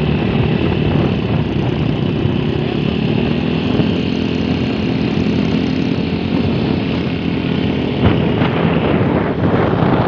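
Steady engine and road noise of a vehicle driving along at speed, heard from on board, with a single knock about eight seconds in.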